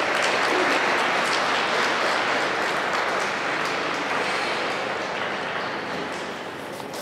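Audience applauding in a rink hall, loudest at the start and slowly dying away.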